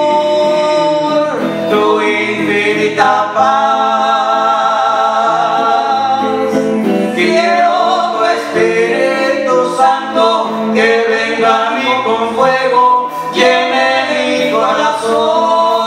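Voices singing a Spanish-language worship song over a PA, accompanied by electric guitar and electric bass.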